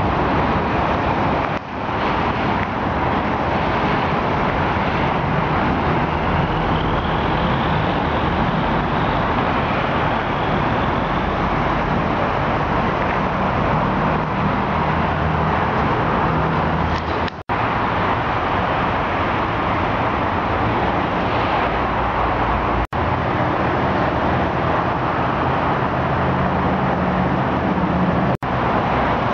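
Steady road traffic noise from passing cars and vehicles, a continuous rushing hum broken by three very brief dropouts in the second half.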